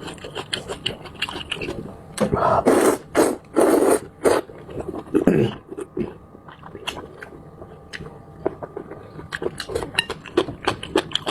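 A person eating noodles: several loud slurps of noodles about two to four seconds in, with quick wet smacking and chewing clicks before and after.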